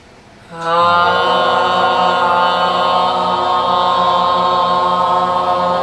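A group of women's voices singing one long, steady 'ah' in unison, starting about half a second in: a pansori vocalization (발성) and breathing exercise.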